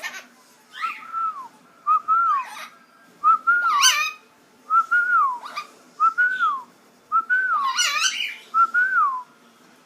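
A pet bird whistling a short note that rises then falls, over and over about once a second, with a couple of louder, rougher calls mixed in around the middle and near the end.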